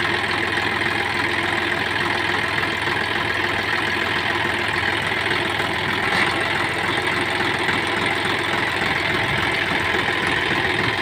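John Deere 5050E tractor's three-cylinder diesel engine idling steadily.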